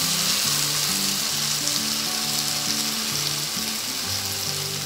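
Bean sprouts and tofu sizzling in a nonstick wok while a wooden spatula tosses them, the stove just switched off so the sizzle slowly fades. Light background music with held notes plays underneath.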